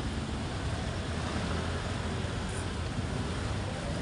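Slow city street traffic heard from a motorcycle: a steady low engine rumble under an even hiss of road noise.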